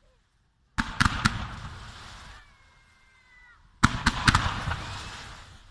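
Aerial fireworks bursting in two volleys, each a cluster of sharp bangs followed by fading crackle as the glittering stars fall. The first volley comes about a second in, the second just before the four-second mark.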